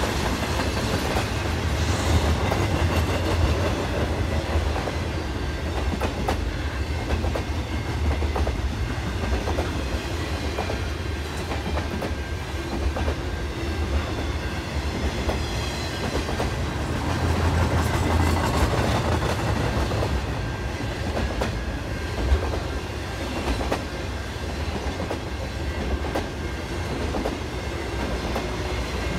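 Freight train cars rolling past, a steady rumble with the wheels clacking over rail joints.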